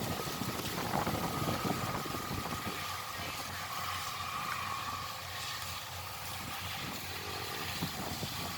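Kubota rice combine harvester's diesel engine running steadily, with a thin high whine over the first half.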